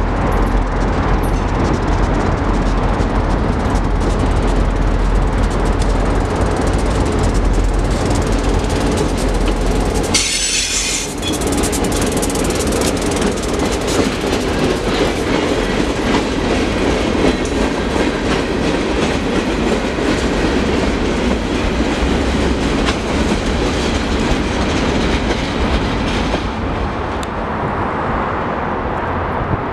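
Providence & Worcester EMD GP38-2 freight locomotive's V16 diesel rumbling as it approaches and passes about ten seconds in, with a short high-pitched burst of noise as it goes by. A string of freight cars then rolls past with wheels clacking over the rail joints, easing off near the end.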